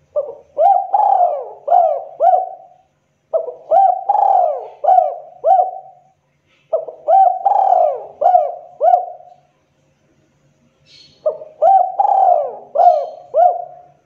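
Spotted dove cooing its sharp breeding-season call: four loud phrases of about five rising-and-falling coos each, with short pauses between them.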